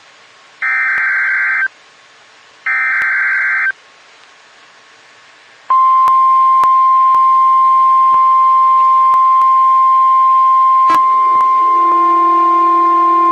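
Emergency Alert System SAME header: two loud bursts of screeching data tones, each about a second long and a second apart. After a short gap, about six seconds in, the steady single-pitch National Weather Service 1050 Hz attention tone starts. A second, lower buzzing tone joins it about two-thirds of the way through.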